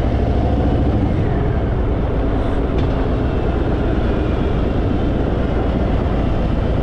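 Harley-Davidson Fat Boy's V-twin engine running steadily while the motorcycle is ridden along the road, a loud, even low rumble.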